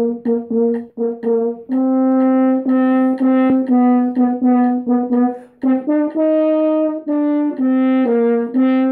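A French horn playing a melody alone: a run of short detached notes, then longer held notes that step up in pitch about six seconds in.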